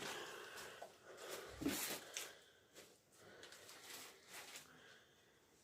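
Faint footsteps and scuffs with clothing or camera rustle, as someone walks through the building, with a louder scrape about two seconds in.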